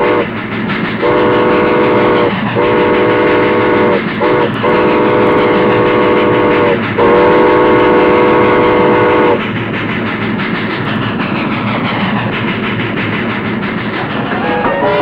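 Steam locomotive whistle sounding several tones at once in a series of about six blasts, some short and some long. After the blasts the train carries on running with a steady rattle.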